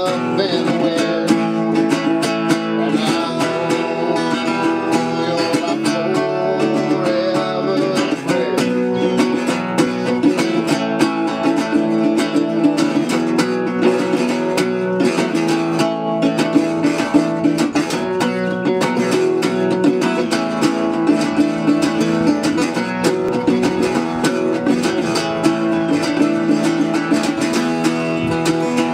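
Single-cone metal-bodied resonator guitar being picked, playing a steady instrumental folk tune with a bright, ringing tone.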